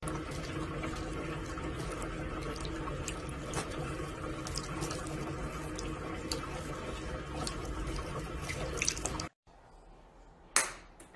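Water running from a sink tap and splashing over a cat's head into the basin: a steady rush with small drips and ticks, cutting off suddenly about nine seconds in. About a second later, one sharp click.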